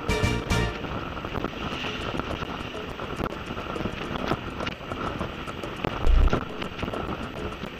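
Wind rushing over the microphone and running noise of a scooter on the move, with a short low thump about six seconds in. Background music cuts out in the first second.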